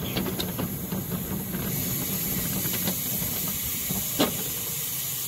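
Miniature steam locomotive running with its train, a steady hiss of steam that grows stronger about two seconds in, over the rumble of the cars on the track. A single sharp click comes near the end.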